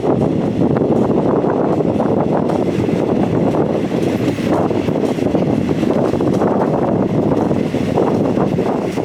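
Heavy wind buffeting the microphone on a moving passenger train, over the train's steady running noise.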